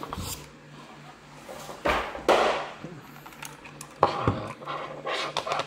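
Handling noises while a boxed keyboard is unpacked: packaging rustles about two seconds in, and something hard knocks once about four seconds in, over a faint steady hum.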